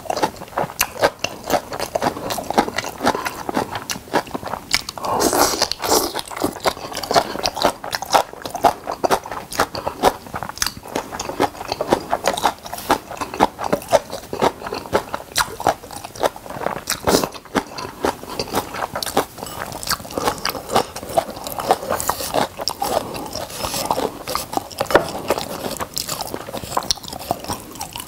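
A person chewing mouthfuls of kimchi and white rice close to the microphone: a dense, unbroken run of quick, sharp wet mouth clicks.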